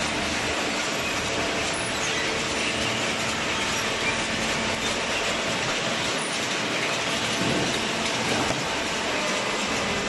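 Inclined steel slat-chain conveyor of a cardboard baler line running and carrying loose cardboard, giving a dense, even mechanical noise with a faint steady hum under it.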